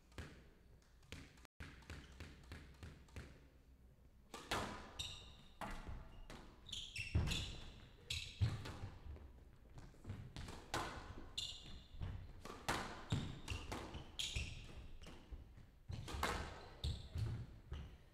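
Squash rally: a quick run of sharp ball strikes off rackets and the court walls, with high squeaks of players' shoes on the court floor. The hitting picks up about four seconds in.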